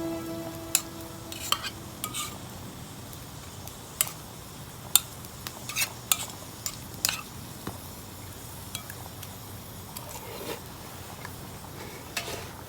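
Cutlery clinking and scraping against cookware, heard as scattered sharp clicks at irregular intervals over a low steady background.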